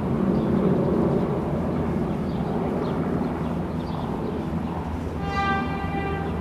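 Steady low rumble of open-air ambience at a railway platform, with a brief high-pitched tone lasting about a second, starting about five seconds in.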